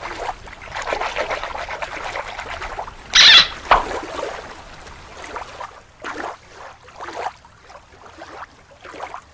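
Shallow water splashing and trickling as a plastic toy is dipped and swished in it, with one louder splash about three seconds in followed by a sharp click, then a few quieter splashes and drips.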